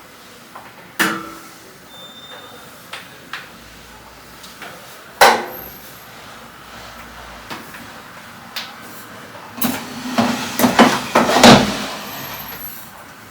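Household knocks and clatter from cleaning: cupboard doors shutting and things being set down. A sharp knock about a second in, a louder one about five seconds in, and a quick run of clattering knocks near the end.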